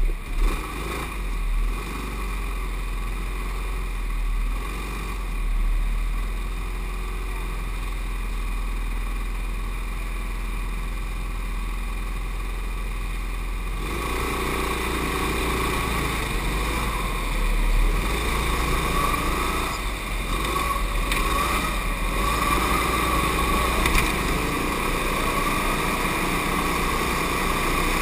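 Indoor go-karts heard from on board: a steady motor hum while the karts wait in line, then from about halfway the karts pull away and the kart noise grows louder and busier as they race.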